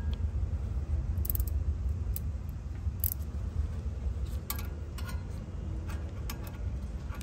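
Light metallic clicks and taps, about six of them spread out irregularly, as a small wrench is fitted onto the set screw in a blower wheel's steel hub. A steady low rumble runs underneath.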